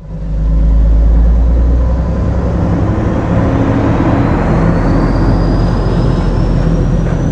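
Tatra heavy truck's diesel engine running as it drives along the road, with tyre and road noise. A thin high whine rises slowly in pitch through the second half.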